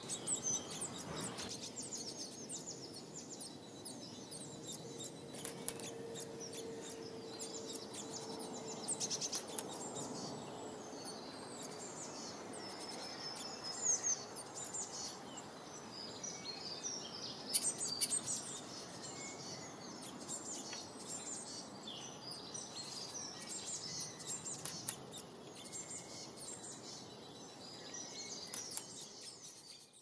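Small garden songbirds chirping and singing, with many quick, high calls and song phrases overlapping over a steady outdoor hiss; a few louder bursts stand out about halfway through.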